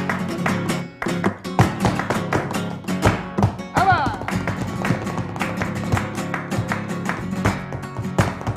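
Flamenco music: acoustic guitar playing with many sharp, rapid percussive strikes.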